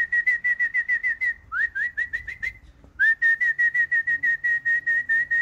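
A person whistling rapid, short repeated notes at one high pitch, about eight a second, to call a racing pigeon down off the roof and into its loft. The whistling comes in three runs: a short break about a second in, a run whose notes each slide upward, then a longer steady run from about three seconds in.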